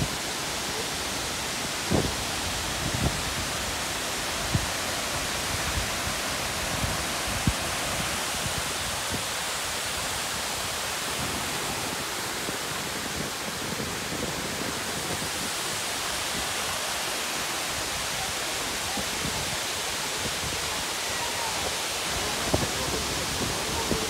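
Steady rushing of a tall waterfall pouring down a rock face. There are a few brief low thumps in the first third.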